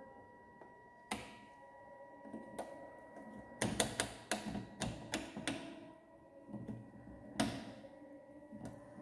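Rotary resistance-selector knobs on a Maxwell bridge trainer clicking through their steps: one click about a second in, a quick run of clicks in the middle, and a few more near the end. Underneath, a faint steady high tone from the bridge's audio signal leaks from the headphone detector; the knobs are being turned to bring this tone down to its minimum and balance the bridge.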